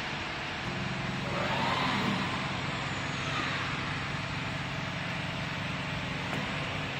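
A 6090 CNC router running: a steady mechanical hum with a broad hiss over it.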